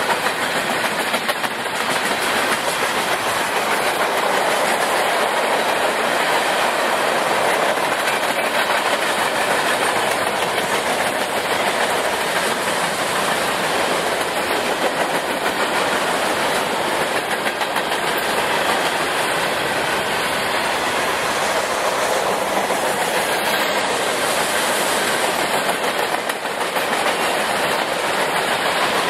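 A train rolling past at close range: a steady, loud rush of steel wheels on rail that goes on without a break.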